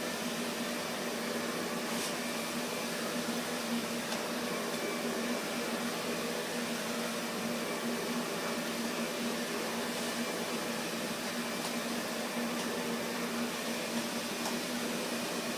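A steady hum over an even hiss, with a few faint ticks.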